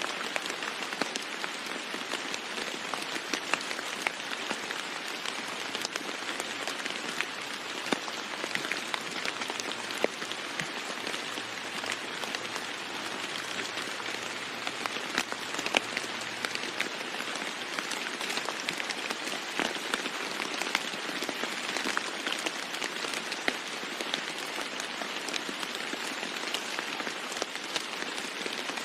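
Steady rain falling on a roof, many separate drop strikes ticking sharply over an even hiss.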